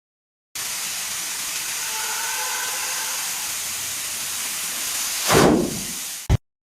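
A steady hiss that swells about five seconds in with a loud sweep falling in pitch, then cuts off with a short knock.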